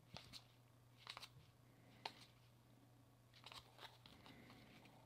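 Baseball trading cards being flipped from one hand-held stack to another: faint, short flicks and slides of card stock, a handful scattered through, over a low steady hum.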